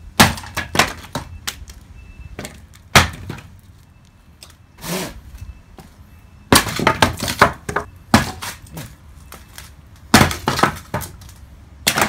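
Firewood knocking and cracking: sharp, loud wooden knocks at irregular intervals, some single and some in quick runs of several.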